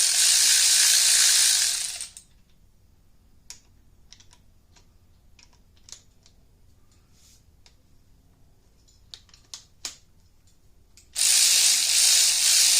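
Hand ratchet on an extension spinning head-stud nuts down in quick strokes: a dense run of fast clicking for about two seconds at the start and again near the end, with scattered light clicks of the socket and tool between.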